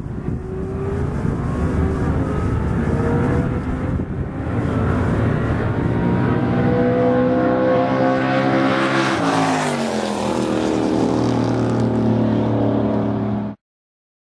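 Two drag-racing cars, one a 1965 Dodge Dart, running hard down the strip. The engine pitch climbs in steps through the gears, rises to a peak about nine seconds in, then falls away, and the sound cuts off suddenly near the end. The owner says the Dart's engine stumbles past the eighth-mile from an ignition or fuel fault.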